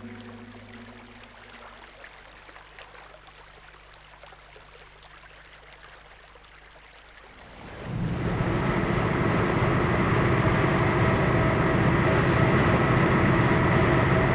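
A musical passage fades out into a quiet lull. About eight seconds in, a steady wash of sea-and-ship noise starts: water rushing with a low engine hum beneath it, the sound of a steamship under way.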